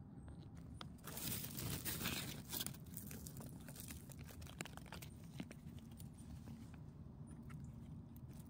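Rustling and crackling of dry conifer needles, twigs and forest litter as a hand picks a mushroom cluster from the ground. It is densest for about two seconds starting a second in, then thins to light, scattered crackles.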